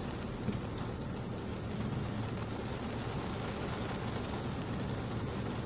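A car engine idling steadily, heard from inside the cabin, under a steady hiss of heavy rain on the windscreen and body.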